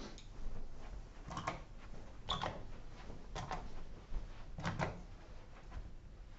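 Four short rattling knocks about a second apart, from the board and projection-screen fittings at the front of a classroom being handled.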